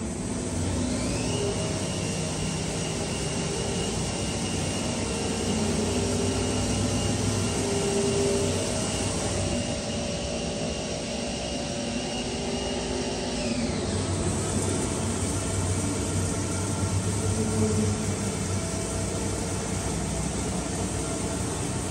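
Steady machinery noise, with a high whine that rises about a second in, holds for about twelve seconds, then falls away.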